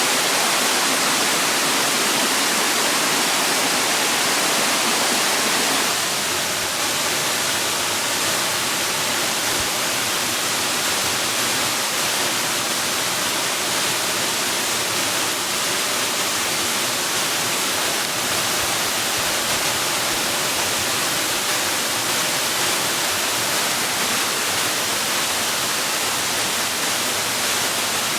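Steady rushing water, mostly a high hiss; about six seconds in it turns slightly quieter and fuller in the lower range.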